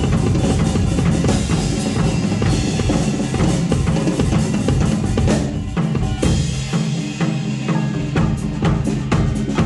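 Band music played with a drum kit to the fore: busy bass drum, snare and rimshot hits over a full accompaniment. The deepest bass drops out briefly past the middle.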